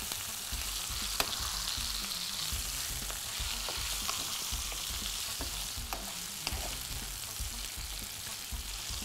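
Beef tenderloin sizzling in butter in a frying pan while a metal spoon bastes it, with a steady hiss and a few light clicks of the spoon against the pan.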